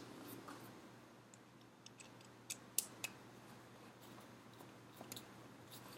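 Faint, scattered clicks and ticks of small plastic and metal parts of a Tamiya double gearbox being handled as a screw is fitted, with a small cluster of sharper clicks near the middle.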